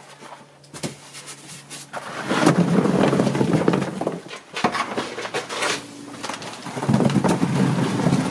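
Potatoes tumbling out of a tub into a wooden potato crate, a rumbling clatter of many small knocks. It comes in two spells, about two seconds in and again near the end.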